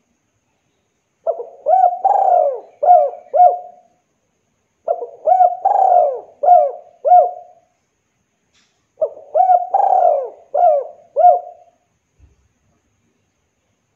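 Spotted dove cooing in three phrases a couple of seconds apart. Each phrase has five coos, two short ones, a longer third, then two short ones.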